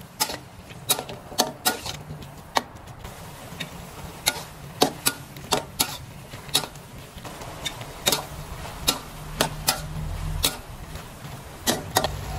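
Metal spatula clinking and scraping against a metal wok while pork and cucumber are stir-fried, irregular sharp knocks about one or two a second.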